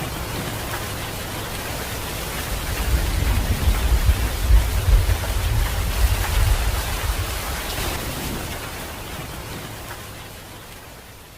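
Heavy rain falling steadily, with a low rumble of thunder that swells about a quarter of the way in and dies away. Near the end the whole sound fades out.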